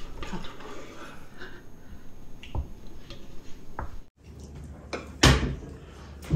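Tableware at a meal: a spoon clinking and scraping in bowls, with scattered light clicks, then a loud sharp knock about five seconds in and a smaller knock near the end.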